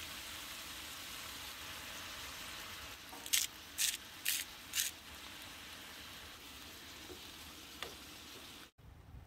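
Vegetable stir fry sizzling steadily in a frying pan on a camp stove. About three to five seconds in, a seasoning grinder over the pan gives four short quick strokes. The sizzle drops off abruptly near the end.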